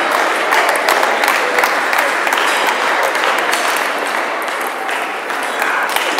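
Sports-hall din of many table tennis balls clicking off bats and tables, from the rally at hand and from several neighbouring tables at once, over a murmur of voices.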